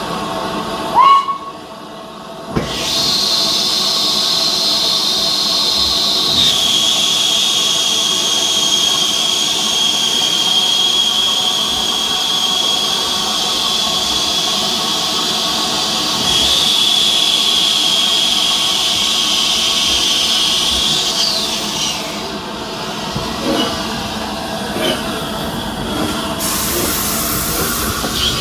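Steam locomotive Flying Scotsman, an LNER A3 Pacific, standing at the platform and blowing off steam: a loud, steady hiss with a high tone running through it for about twenty seconds. Near the end comes a shorter, sharper hiss of steam. A short loud sound comes about a second in.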